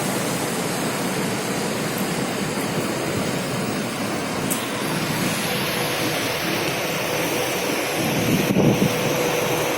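Heavy rain falling steadily, an even hiss, with a brief louder low rumble about eight and a half seconds in.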